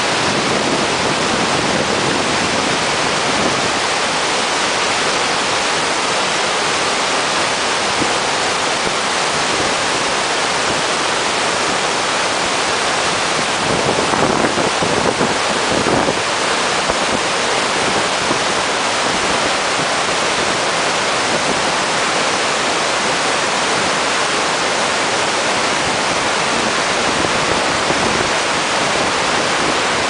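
Steady, loud roar of Iguazu Falls: a huge volume of water rushing over rapids and plunging down the falls, a dense unbroken hiss with a deeper, rougher surge about halfway through.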